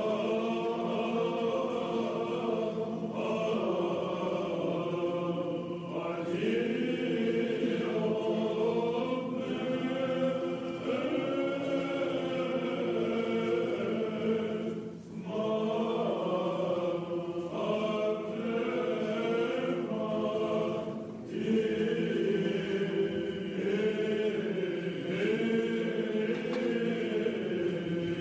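Background music: Byzantine-style choral chant, several voices singing slow sustained phrases over a held low drone, with short breaths between phrases.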